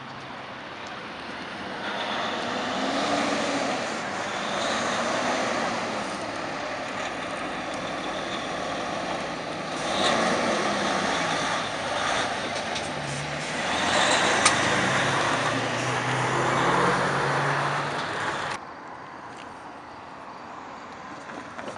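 Road traffic crossing a bumpy railway level crossing, with a Freightliner Cascadia semi truck's diesel engine running as it passes, along with tyre noise. There is one sharp knock about fourteen seconds in. The traffic noise cuts off suddenly about three-quarters of the way through, leaving quieter street sound.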